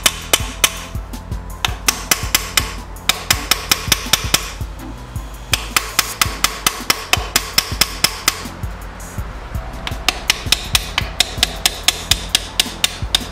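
Brass hammer tapping rapidly on a main bearing cap of a Ford flathead V8 block, about three to four sharp taps a second in runs with a couple of short pauses: the stuck cap is being jarred loose by vibration.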